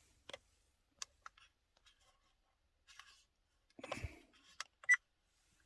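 Scattered small plastic clicks and handling noise from a dashcam being worked on. There is a soft low thump about four seconds in and a sharp click with a brief ringing tone near the end.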